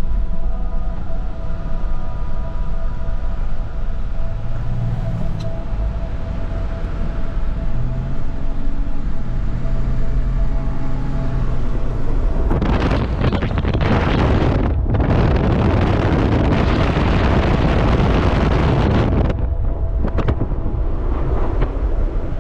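Jeep in four-wheel drive driving through deep snow, heard from inside the cabin: a steady low engine and road rumble. About halfway through, a loud rushing hiss sets in for about seven seconds, with one short break.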